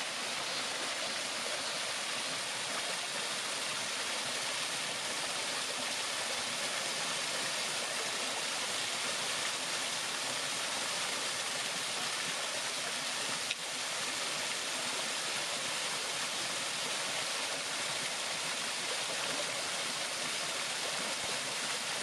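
Steady rushing of water from a small waterfall splashing into a shallow rocky stream, with one brief click about midway.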